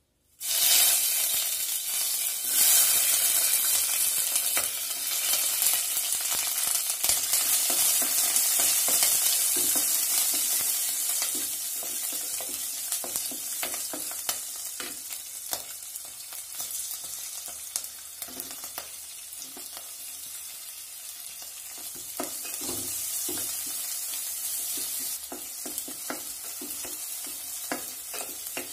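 Green chillies, garlic, curry leaves and onion sizzling in hot sesame oil in a pan. The sizzle starts suddenly as they go into the oil and gradually eases, while a wooden spatula stirs them with frequent scraping clicks against the pan.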